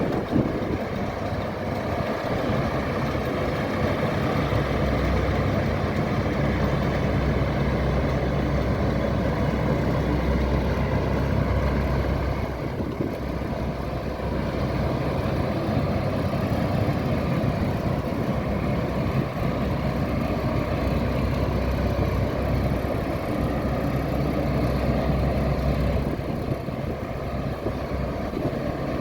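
1964 Claas Matador Standard combine harvester running steadily under load while cutting and threshing barley, its engine and threshing machinery giving a constant low hum.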